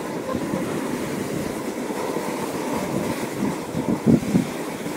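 Mountain bike tyres rolling down firn snow: a steady rough rumble of tyres and bike on the snow, with a couple of louder bumps about four seconds in.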